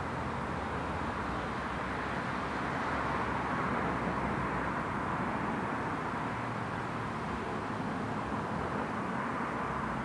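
Steady distant rumble of a train approaching through a tunnel, swelling slightly a few seconds in.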